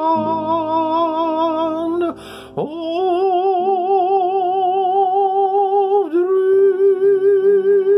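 A man singing the long held closing notes of a ballad with a wide, even vibrato, over a keyboard accompaniment. A quick breath breaks the line about two seconds in, and the note changes about six seconds in.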